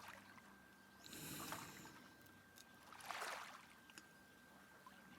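Faint ocean waves washing in softly, two gentle swells about two seconds apart.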